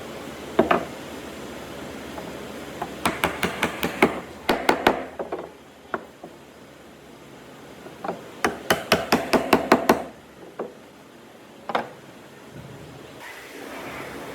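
Hammer blows on wood: two runs of quick strikes, about five a second, with a few single knocks between.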